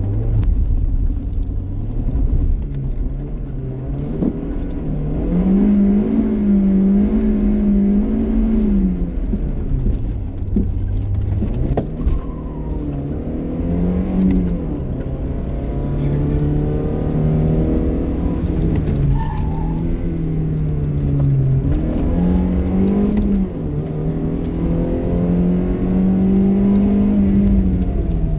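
BMW car engine heard from inside the cabin, driven hard along a twisting road: the engine note climbs under acceleration and falls away at gear changes and lifts for corners, several times over.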